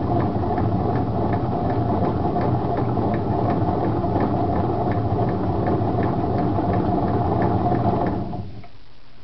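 1986 Honda Spree scooter engine being turned over with its drive belt off. It makes a steady mechanical grinding rattle with a faint whine and regular faint ticks, and stops about eight seconds in. The owner suspects worn crankshaft bearings, not the piston or cylinder.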